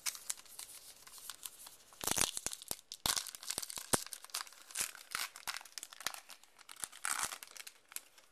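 A baseball card pack's wrapper being torn open and crinkled, in several irregular crackling bursts with sharp ticks.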